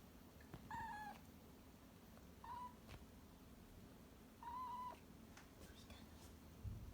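A kitten meowing three times, short, high, fairly level calls a couple of seconds apart. A soft low thump comes near the end.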